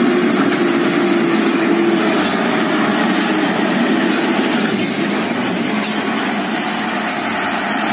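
Diesel engine of a KamAZ truck crane running as the truck drives through mud, a steady engine noise with a held tone over the first couple of seconds that then fades.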